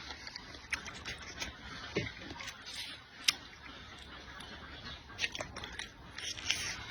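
Close-miked eating: a person chewing and biting food, with scattered small sharp clicks of the mouth and food.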